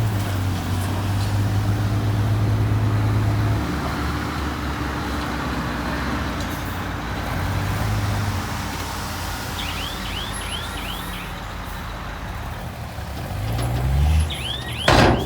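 Heavy diesel earthmoving machinery running with a low drone, which rises in pitch as the engine revs up near the end. Brief high squeaks come twice, and a short, sharp burst of noise comes just before the end.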